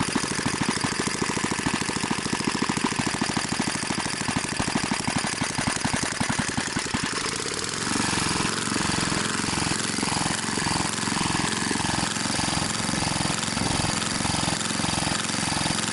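BSA 220cc single-cylinder engine running fast and steady. About halfway through, the sound changes abruptly to a slower pulsing of about two beats a second.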